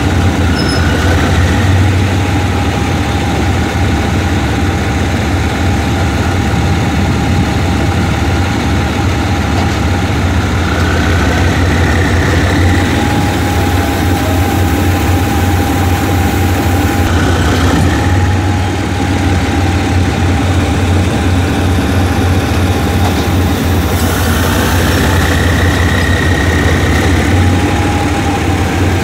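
The diesel engine of a State Railway of Thailand GEK-class locomotive runs steadily with a deep, even hum and a steady whine above it. A higher whistling tone rises and fades twice.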